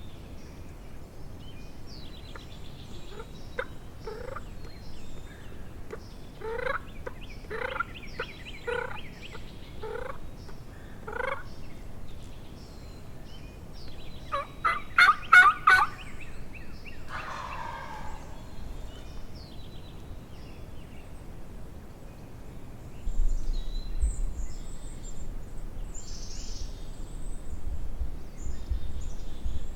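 A wild turkey gobble, a rapid rattling call about halfway through and the loudest sound, preceded by a slow series of about eight turkey yelps. A low rumble comes in for the last few seconds.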